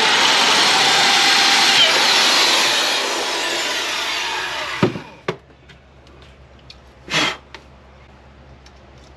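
Power drill boring a mounting hole into a wall. It runs for about five seconds, then winds down with a falling whine. A brief second burst comes about two seconds later.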